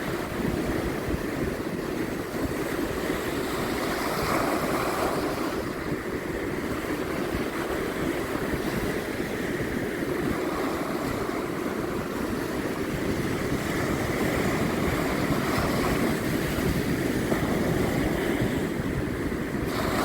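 Ocean surf breaking and washing steadily, with wind rumbling on the microphone.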